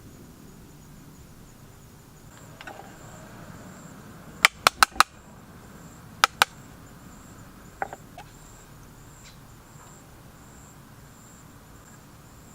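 A few sharp knocks: four in quick succession a little before halfway, two more about a second and a half later, and a fainter one after that, over a faint steady hiss.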